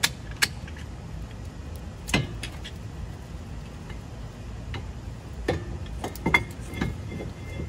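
Scattered sharp metallic clicks and knocks as tools and brake parts are handled at a car's front wheel hub, over a low steady rumble.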